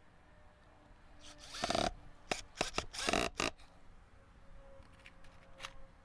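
Cordless drill boring into a pallet-wood board: one longer rasping run of the bit through the wood a little over a second in, then a few short bursts on the trigger.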